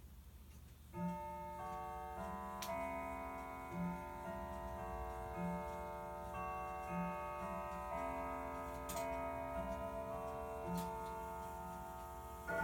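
Sligh grandfather clock chiming: struck chime notes begin about a second in and follow roughly every second and a half, each ringing on and overlapping the next, with the clock's ticking underneath.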